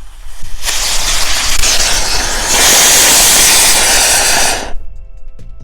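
Ladybug ground firework burning with a loud hissing rush of sparks. The hiss grows louder about halfway through and cuts off near the end. It is a performance the lighter calls a fail.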